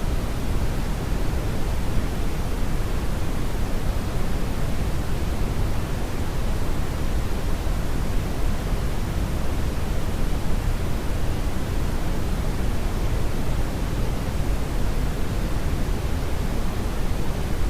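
Steady brownian noise: an even, unchanging rumbling hiss, heaviest in the low end and thinning toward the top.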